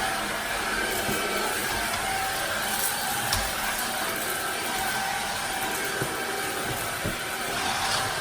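TURBRO Doubtfire D16 cordless stick vacuum running steadily, a motor whine over rushing air, with a few small knocks.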